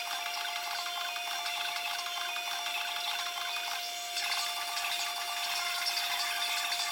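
Small high-speed rotary tool running with a steady high whine while it cuts and grinds along the edge of a carbon composite part, with an uneven scraping texture where the bit bites.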